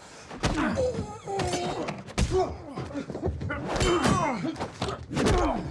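Movie fight sounds: about four heavy hits and clanks, roughly one every second and a half, as a knife and blows strike an aluminium briefcase held up as a shield, with a brief metallic ring around the middle. Men grunt and strain between the hits.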